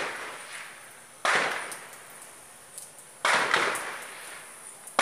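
Gunshots: four sharp single shots about two seconds apart, each trailing off in a long echo.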